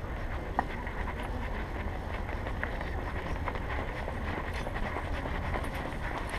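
Steady low rumble and rustle from a body-worn action camera jostled by walking, with a few faint light clicks scattered through.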